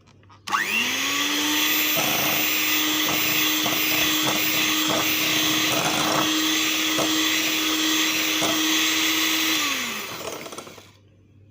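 Electric hand mixer's beaters beating egg, milk and vanilla into creamed butter and sugar. The motor whines up to speed about half a second in, runs steadily with scattered clicks, then winds down and stops near the end.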